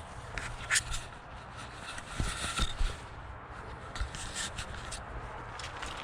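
Scrapes, taps and rustling from something being handled, loudest about two to three seconds in, over a steady low rumble.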